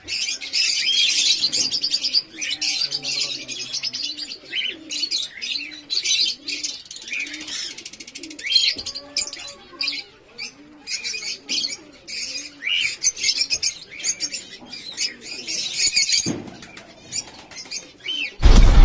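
Many caged birds chirping and twittering together, with a dove cooing over and over underneath, about twice a second. The chirping stops about sixteen seconds in, and just before the end a loud whoosh of a sound effect cuts in.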